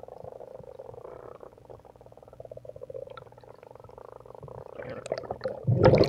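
Muffled underwater ambience picked up by a diver's camera: a dense, rapid crackle. Near the end comes a loud rush of water and bubbles.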